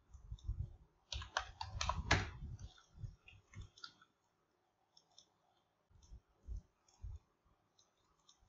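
Faint clicking of a computer mouse and keyboard during desktop work: a quick run of clicks about a second in, then sparser, fainter ones.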